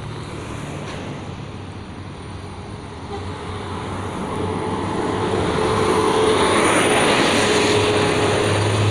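A large road vehicle, likely a bus, approaching; its engine and tyre noise swells steadily louder from about three seconds in. No horn melody is heard.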